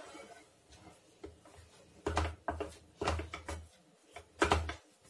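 Wooden spatula scraping and knocking against a nonstick pan as thick rice-flour dough is worked, in a run of short strokes about half a second apart that starts about two seconds in.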